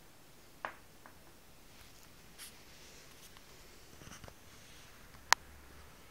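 A few faint taps and clicks over low room hiss, with one sharp click about five seconds in.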